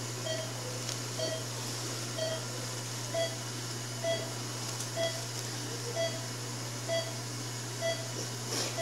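Patient monitor's pulse beep sounding steadily a little faster than once a second, about 65 a minute, each short beep at the same pitch and keeping time with the patient's heartbeat. A constant low electrical hum runs underneath.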